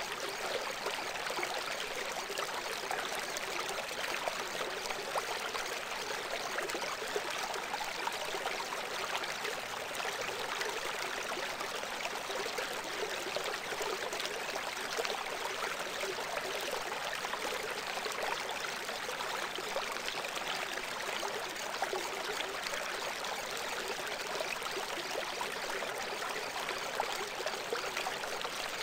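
Steady, unchanging sound of running water, like a stream, with nothing below a low-mid cutoff. It serves as the masking background of a subliminal audio track.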